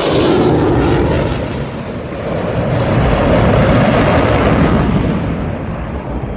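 Jet noise from an F-22 Raptor's twin F119 turbofan engines as the fighter passes overhead and flies away. The high hiss fades after about a second and a half, leaving a deep rumble that eases near the end.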